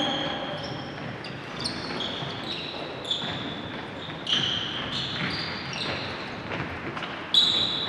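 Players' indoor shoes squeaking in short, scattered chirps on a wooden gym floor during a futsal game, over a reverberant hall. Now and then the ball knocks, the loudest just after seven seconds in.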